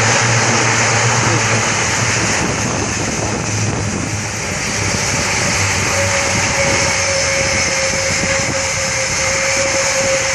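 Airbus A400M's four turboprop engines during landing: a loud, steady rush with a low propeller hum that fades after about two seconds. About six seconds in, a steady higher whine comes in.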